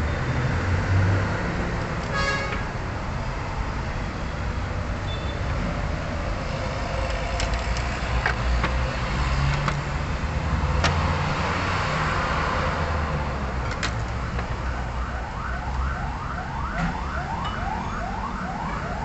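Low traffic rumble with a few sharp clicks; from about fifteen seconds in, an emergency-vehicle siren yelping in quick rising sweeps, about two or three a second.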